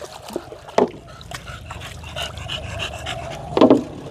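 A dog panting close by in quick, shallow breaths, with one brief louder sound about three and a half seconds in.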